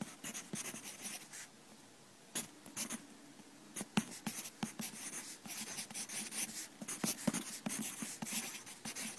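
A pen scratching across paper in quick, uneven strokes as someone writes by hand, with short pauses about one and a half and three seconds in.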